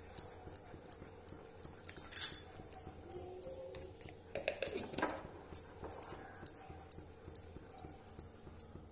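Thick milk custard being stirred in a steel pan with a silicone spatula: a steady run of soft ticks, about three a second. A faint rising and falling tone comes in about five seconds in.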